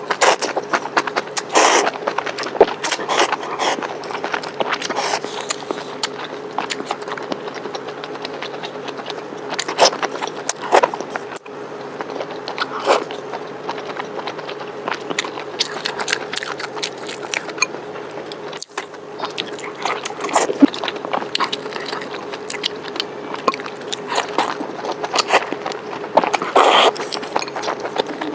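Close-miked eating: chewing and biting into spicy hot-pot food, with many irregular wet crunches and clicks, over a steady faint hum.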